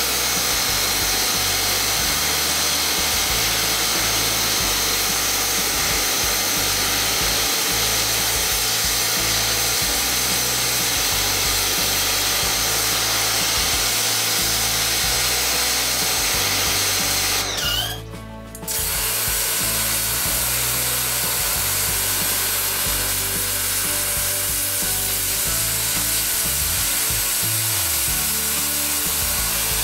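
Pressure washer spraying a high-pressure jet of water onto a grime-clogged rain chain, a steady loud hiss over the machine's hum. The spray stops for about a second just past halfway, then starts again.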